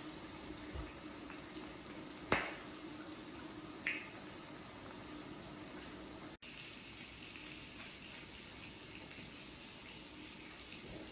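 Electric hot pot's broth simmering faintly and steadily. A sharp click comes about two seconds in and a smaller one near four seconds.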